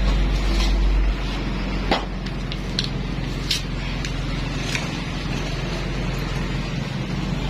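A few short, sharp metal clinks of hand tools against motorcycle engine parts, scattered through the middle, over a steady low hum.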